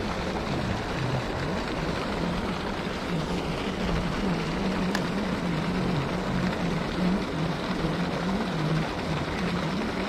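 Steady rushing and splashing of a pond aerator fountain's water jet, under a low hum that wavers up and down in pitch. A single faint click about five seconds in.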